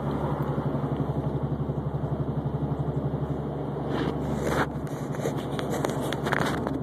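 Subaru Baja wheel bearing of the press-in type, droning with a fast, even wah-wah pulse while driving. This is the sign of a flat spot worn into the bearing race. A few sharp ticks come in over the second half.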